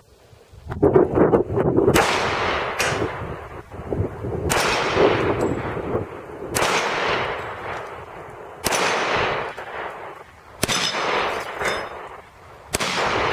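Taurus 24/7 G2 .45 ACP pistol fired at a slow steady pace, about one shot every two seconds, each report followed by a long fading echo. Between the shots come thinner sharp clanks of bullets striking hanging steel target plates.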